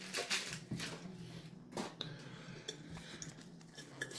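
Pokémon trading cards handled by hand, with faint scattered clicks and slides as the cards are moved against each other.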